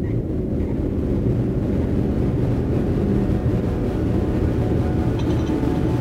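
A dense low rumbling drone in the film's sound design that swells slightly. Faint high ringing tones join it near the end.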